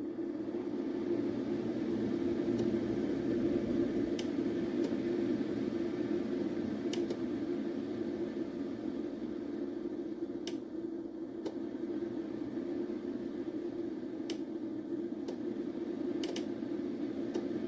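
CHULUX single-serve coffee maker running a brew cycle: a steady pump hum with a few sharp clicks scattered through it.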